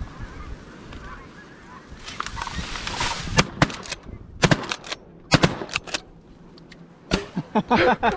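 Several shotgun blasts in quick bursts, from about three to six seconds in, with one more near seven seconds. A flock of birds calls in the background.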